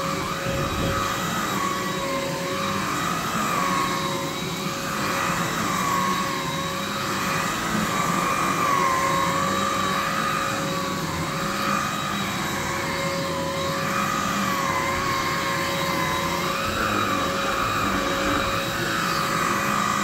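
Electrolux vacuum cleaner running with its power nozzle being pushed over a thick shag rug: a steady motor whine whose high pitch wavers up and down every second or two.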